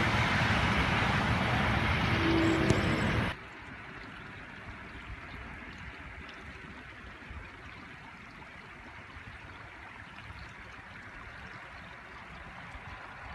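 Wind blowing over the microphone, loud and rumbling for about three seconds, then after an abrupt cut a much quieter steady wind hiss.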